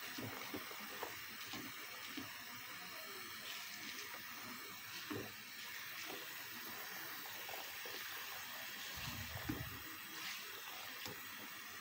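Kitchen faucet running a steady stream into a stainless steel sink filled with foamy water, a continuous hiss with a few small knocks and splashes from a hand moving in the water.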